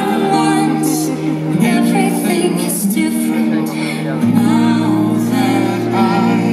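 The show's soundtrack playing: music with a singing voice over sustained instrumental notes.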